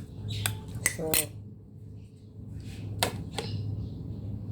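Utensils clinking against dishes or a pot in kitchen work: a few sharp clinks early on and another pair about three seconds in, over a steady low hum.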